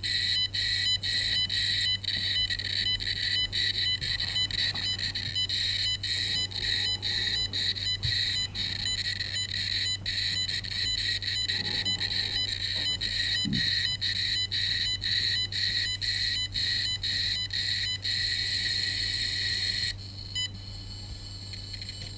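Cornet electrosmog meter's audio output beeping in rapid, irregular pulses as it picks up the high RF transmission from a phone working in 4G LTE mode. The pulsing stops about twenty seconds in, leaving a fainter steady tone.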